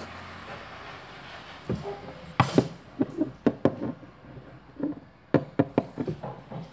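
Irregular taps and knocks of a plastic toy pony figure being moved by hand across a wooden shelf, its hooves striking the wood.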